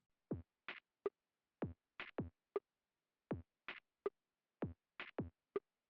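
Electronic drum-machine beat on its own: short kick drums that drop quickly in pitch, mixed with brief higher clicks and hits, separated by silence.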